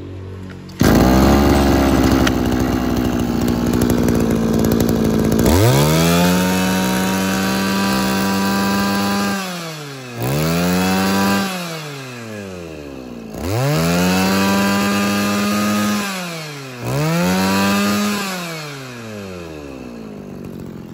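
Mitsubishi TL231 brushcutter's small two-stroke engine running at high revs, then revved up and let fall back to idle four times. It sounds very punchy and quick to rev.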